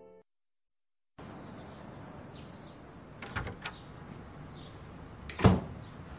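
Piano music fading out at the start, then a second of silence, then quiet room tone with a few light clicks a little after three seconds in and one louder knock about five and a half seconds in.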